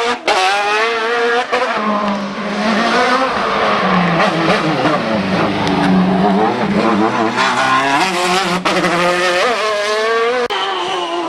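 Racing car engine under hard acceleration on a hill-climb, its pitch climbing through the revs and falling back at gear changes and lifts, with sharp breaks in the sound about a second and a half in and near the end.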